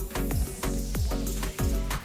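Background music with a steady beat: a deep kick drum that drops in pitch, about twice a second.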